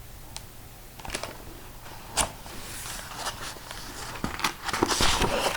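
Picture book being handled between pages: scattered light clicks and taps, then a papery rustle about four seconds in as a page is turned.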